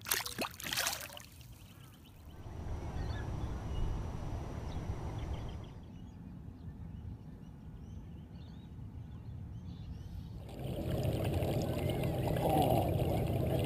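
A brief burst of splashing in the first second as a bass is held at the surface and released, then steady water and wind noise from the canoe moving along while trolling, louder in the last few seconds.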